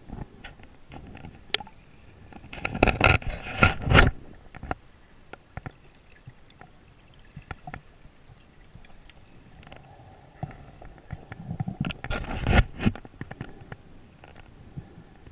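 Underwater noise picked up through a GoPro's waterproof housing: scattered clicks and scraping, with two louder rushing bursts of about a second and a half each, some nine seconds apart.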